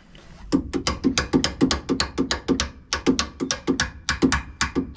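Rapid hammer taps on metal, about five or six a second, each a sharp knock with a short ring, starting about half a second in and stopping abruptly near the end: tapping a pulley onto its shaft on an AMF 82-30 pinsetter.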